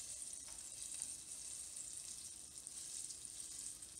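Breaded sea trout fillet deep-frying in a pot of hot oil: a steady sizzle.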